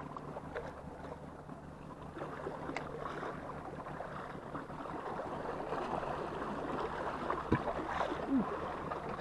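Sea water washing and lapping against the shore in a steady wash of small waves.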